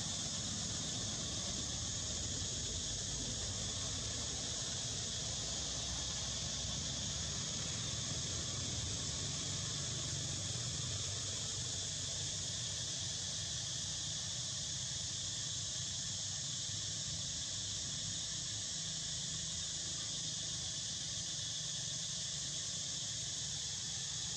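Steady insect chorus, a constant high shrill that does not change, with a low steady hum underneath.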